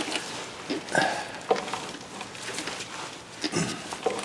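A few scattered sharp clicks and knocks of hand tools being handled against metal parts, with pauses between them.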